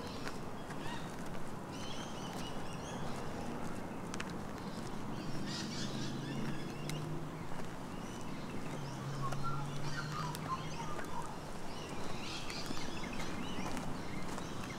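Several birds calling and chirping, over steady footsteps of someone walking a bush track. A low hum rises in the middle for a few seconds.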